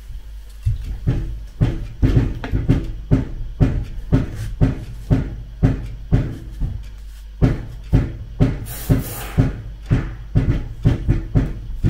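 Dull knocks repeating steadily about twice a second, coming a little faster near the end.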